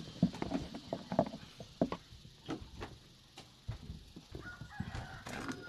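Scattered knocks and clicks of footsteps and handling in a wooden house, with short animal calls.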